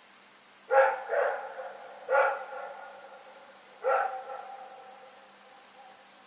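A dog barking four times: two quick barks about a second in, another a second later, and a last one near four seconds. Each bark trails off in a fading echo.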